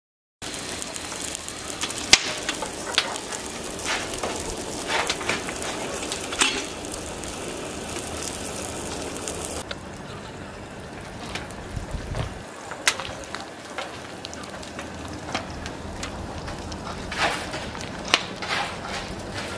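Wood fire burning inside an old gas cooker converted into a wood stove: a steady crackling hiss with frequent sharp pops and snaps. The hiss drops a little about halfway through.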